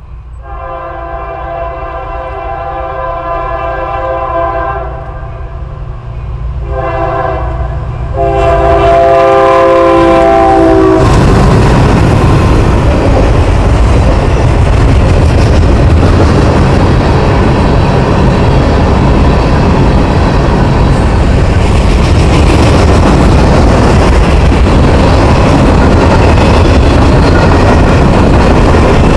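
Freight train's diesel locomotive horn sounds two long blasts as it approaches. About eleven seconds in, the locomotives reach the microphone and the freight cars roll past close by with loud, steady wheel-on-rail noise.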